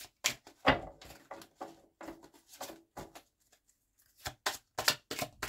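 A deck of oracle cards being hand-shuffled: a run of soft card snaps and slaps, a pause of about a second a little past the middle, then a quicker run of snaps near the end.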